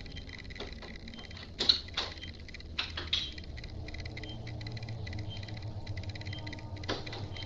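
Steady low hum of room tone picked up by a security camera's microphone, with a few sharp clicks and knocks. The loudest is a double knock about a second and a half in, then two more around three seconds and one near the end.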